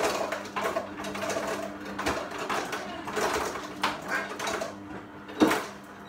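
Ice cubes clattering and a plastic bag crinkling as ice is piled on top of slime in baggies, with a few sharper knocks and a faint steady hum underneath.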